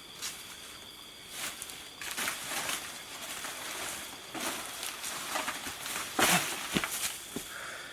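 Rustling and crunching footsteps in leaf litter and mud, over a steady high chirring of night insects. The loudest crunch comes about six seconds in.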